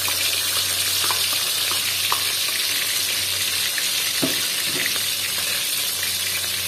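Blended garlic, shallots and green chilli frying in hot cooking oil in a wok, a steady sizzle with small spattering pops. A single light knock about four seconds in.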